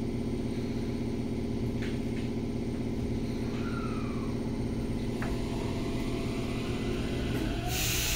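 Interior hum of a Tokyo Metro Tozai Line train standing with its doors closed: steady electrical and mechanical running noise, with a few faint tones gliding in pitch. About three-quarters of the way through, a loud hiss begins.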